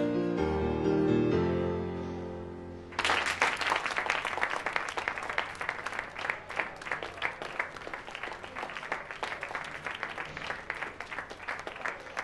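The last sustained chords of a pop song's backing ring out and fade over about three seconds. Then a small audience breaks into applause, with clapping that continues steadily.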